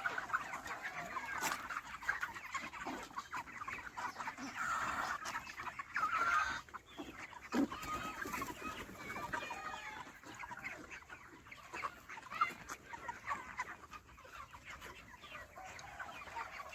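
A flock of broiler chickens clucking and chirping, with many short calls overlapping throughout.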